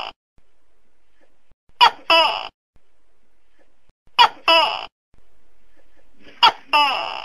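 Tokay gecko calling "to-kay": three two-part calls a little over two seconds apart, each a short sharp note followed by a longer note that falls in pitch.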